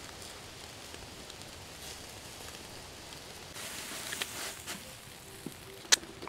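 Charcoal crackling in a barbecue grill: a steady soft hiss with scattered crackles, a brief busier flurry a little past halfway and a sharp snap near the end.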